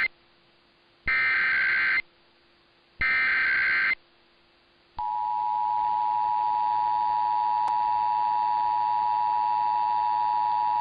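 Emergency Alert System SAME header for a Required Monthly Test, heard over AM radio: two harsh digital data bursts, each about a second long and a second apart. About five seconds in, the steady two-tone EAS attention signal starts and holds.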